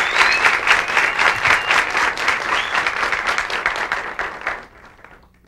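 Studio audience applauding, the clapping fading away about four and a half seconds in.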